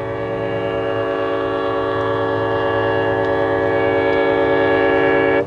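Diesel locomotive air horn sounding one long chord of several notes, growing gradually louder as the train nears, then cut off suddenly near the end.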